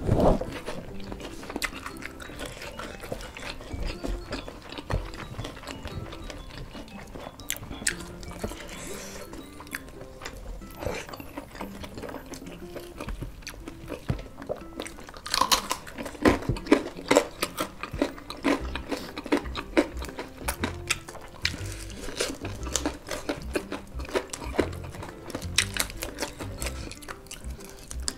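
Close-up eating sounds of fried chicken eaten by hand: wet chewing, lip smacks and crisp crunches, coming thick and fast from about halfway on. Soft background music runs underneath.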